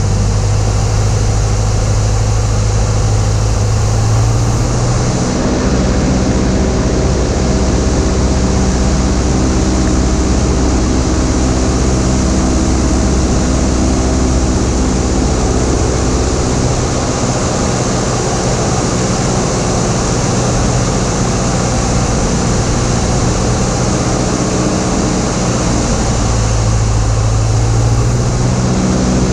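Cessna 172's piston engine and propeller running steadily, with wind hiss over the airframe. The engine note drops about five seconds in and rises again near the end, as power is cut back and then brought up.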